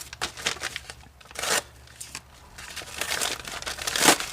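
Shipping package being torn open by hand, its wrapping crinkling in irregular bursts, with a sharp rip about a second and a half in and the loudest one near the end.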